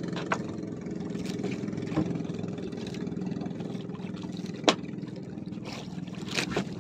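Small boat engine idling steadily, with a few sharp clicks over it, the clearest about two-thirds of the way through.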